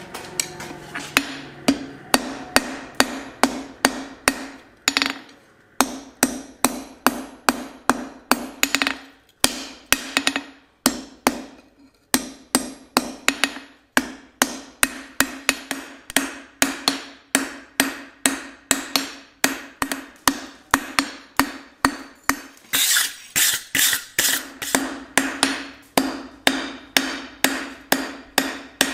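Hand hammer striking red-hot steel bar stock on an anvil, about two blows a second with a few short pauses. The anvil rings after each blow as the bar is drawn out by hand.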